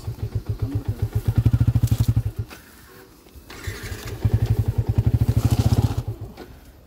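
Motorcycle engine chugging at low revs with an even, rapid exhaust beat. It swells louder twice: for about a second near the start, then for about a second and a half after a lull in the middle, as the bike is forced through soft ground where it is sinking.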